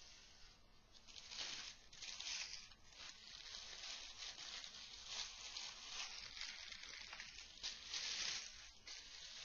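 Rustling and scraping of packaging as a pipe box is handled and opened, in uneven swells of hissy noise.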